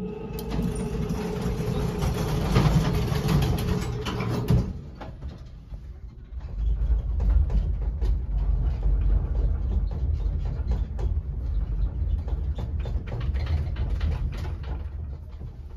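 Traction elevator car travelling down: a louder rushing mechanical noise with a steady hum for about the first four and a half seconds, then a steady low rumble with scattered clicks and rattles as the car runs down the hoistway.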